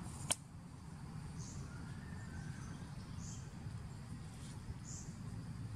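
Outdoor ambience: a steady low rumble, one sharp click just after the start, and three short high chirps a little under two seconds apart.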